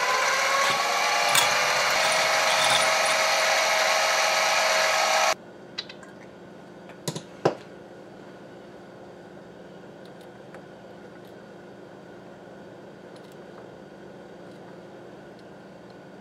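Power drill running steadily as a drill bit bores out a scope-base screw hole in a steel Remington 700 receiver, ready for tapping to 8-40. It cuts off suddenly about five seconds in, followed by a few light clicks and a faint steady hum.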